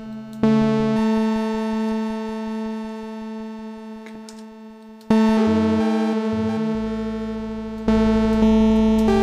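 Teenage Engineering OP-1 synthesizer playing a brightened bell-type patch: held notes with rich overtones that slowly fade, with new notes struck about half a second in, about five seconds in, and again near the end.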